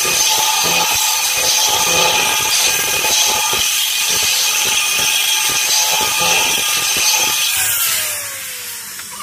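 Red corded electric drill running steadily under load with a long bit boring into a steel tank through a welded pipe fitting. Near the end the trigger is released and the motor whines down.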